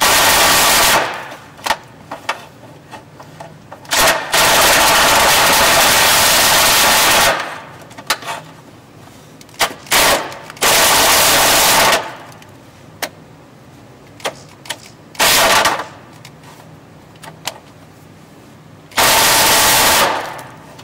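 Cordless drill run in short bursts to ream out a hole in a steel vehicle frame rail, the bit chattering and the drill shaking hard in the hole; about six runs of one to three seconds, the longest a few seconds in, with clicks between them.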